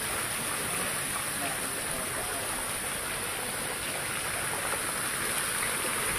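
Steady hiss of water spraying from a naga statue's water-spouting mouth and splashing down.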